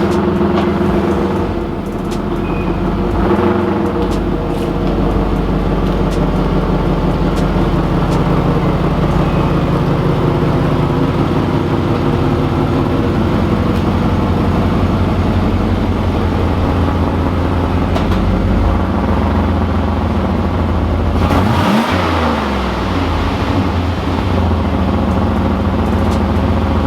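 1991 Pontiac Firebird Formula's 305 Tuned Port Injection small-block V8 running steadily at idle while it warms up, with one brief swoop in pitch about 22 seconds in.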